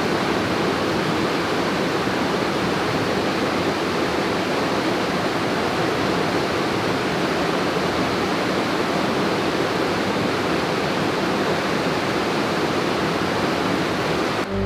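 Steady rushing of flowing water, even and unbroken, cutting off suddenly near the end.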